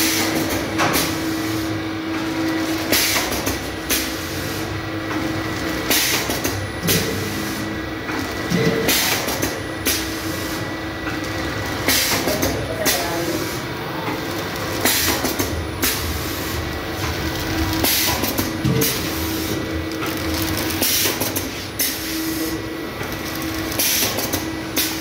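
Pouch packing machine with screw-conveyor feeder running: a steady hum with a short, sharp noisy burst repeating about once a second, one for each packing cycle.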